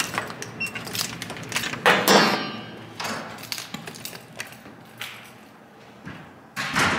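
Handling noises: a run of small knocks and clicks, with louder bumps about two seconds in and near the end.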